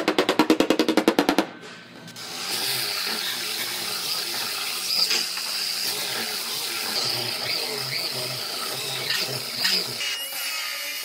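A steel body hammer tapping rapidly on a car's sheet-metal quarter panel, about nine light blows a second, stopping after about a second and a half. Then a pneumatic belt sander runs steadily, grinding the steel of the car's rear body, and its sound changes near the end.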